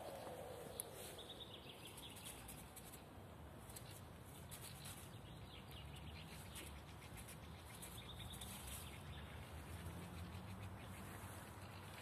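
Quiet woodland ambience with a few faint, high bird chirps now and then over a low rumble.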